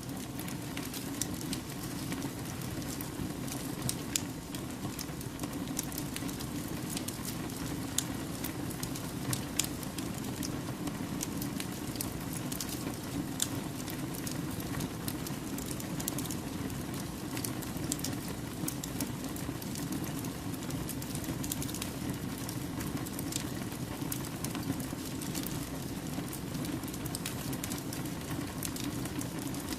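Wood campfire burning: a steady rush of flames with frequent sharp crackles and pops from the burning logs.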